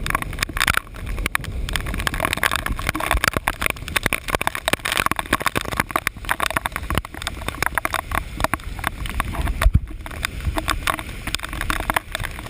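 Muffled, irregular knocking and rubbing from a handheld GoPro inside its waterproof case, jolted by hurried walking, over a steady low rumble.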